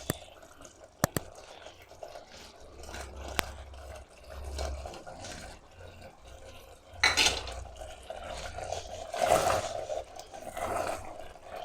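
A metal spoon stirring and scraping thick mutton gravy in a pressure cooker pot, with a few sharp clicks of metal on metal. The scraping comes in irregular spells, heavier from about halfway through.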